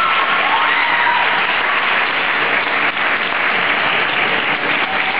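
Spectators applauding, steady clapping with a few voices calling out over it in the first second or so.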